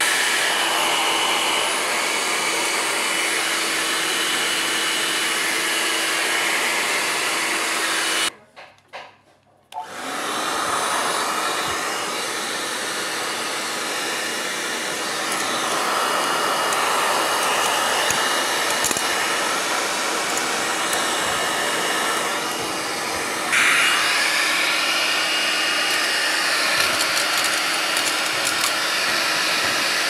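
Hand-held hair dryer with a comb nozzle blowing onto a damp washing machine control board, a steady rush of air with a faint motor whine. It cuts off for about a second and a half a little after eight seconds in, then starts again, and turns louder about twenty-three seconds in.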